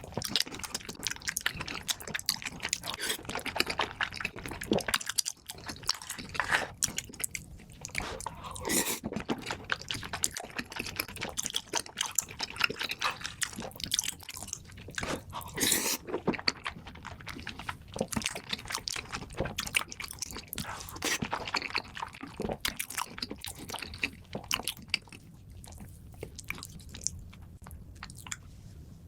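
Close-miked eating: crisp crunching bites and chewing of crunchy food, a dense run of irregular crackles and mouth sounds that thins out for a few seconds near the end.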